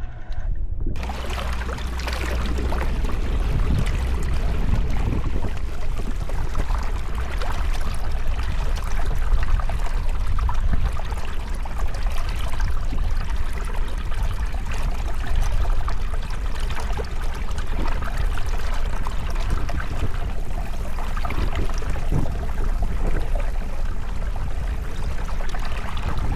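Steady rushing and splashing of water around a kayak on the water, starting about a second in.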